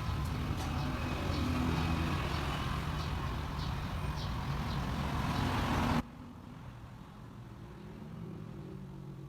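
A steady low rumble with a few faint light ticks; it stops abruptly about six seconds in, leaving a quieter low hum.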